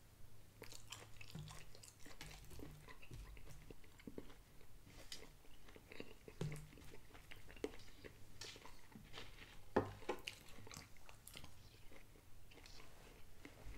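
A man chewing a mouthful of roast beef, faint and close, with many small scattered mouth clicks.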